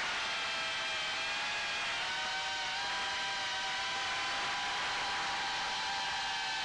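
Brushless motors and propellers of a homemade 140 g 3-inch FPV quadcopter, whining steadily in several pitches that drift slowly up and down over a steady hiss.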